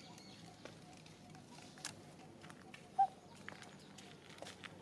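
Quiet outdoor ambience with scattered faint ticks and one short, clear chirp about three seconds in.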